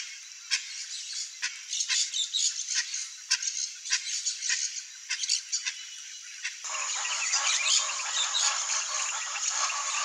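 Outdoor wildlife ambience: short sharp chirps, two or three a second, over a high hiss. About six and a half seconds in it switches abruptly to a denser, louder chorus of insects.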